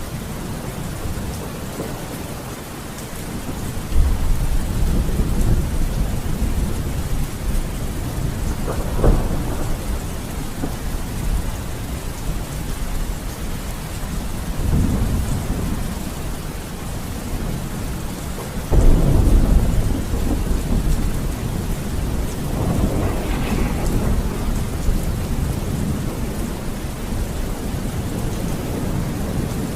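Steady heavy rain with repeated rolls of thunder: a rumble builds a few seconds in, a sharp crack comes about a third of the way through, and the loudest clap and rumble break about two-thirds through, followed by another roll.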